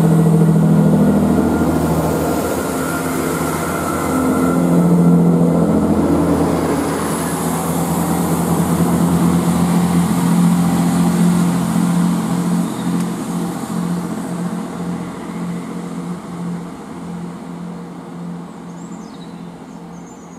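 GWR Class 165 Networker Turbo diesel multiple unit departing under power: its diesel engines hum steadily, grow louder about five seconds in, then fade as the train draws away.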